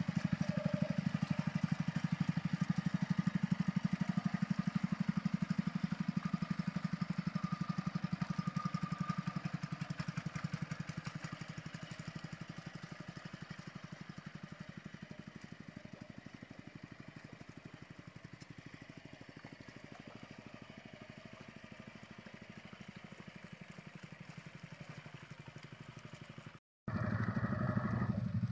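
Single-cylinder engine of a two-wheel hand tractor running steadily under load as it drags its cage wheels and harrow through a flooded rice paddy, a rapid even putter. It fades gradually as the tractor moves off, cuts out briefly near the end, then comes back loud.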